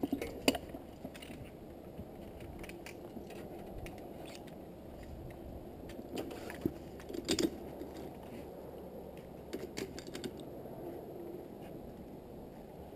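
Metal zipline gear, a trolley and carabiners, clinking and clicking as it is handled and clipped onto the cable: a few sharp metallic clicks, with a cluster of them about seven seconds in, over a steady low background rush.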